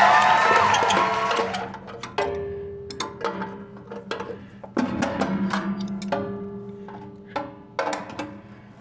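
A short burst of music that fades out, then irregular metal clanks and clinks, each with a brief ring. The sound comes from two adjustable wrenches and the freshly sheared piece of steel sawmill band being handled.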